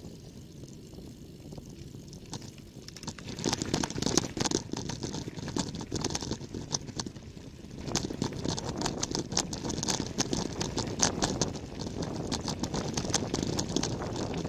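Tyres rolling along a gravel road: a steady low rumble with dense crunching and clicking of loose stones, which grows louder about three seconds in.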